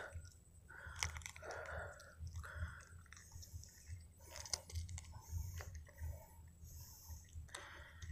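Faint, close handling noises: scattered clicks and crunchy rubbing as hands grip a freshly caught snakehead and work the lure in its mouth.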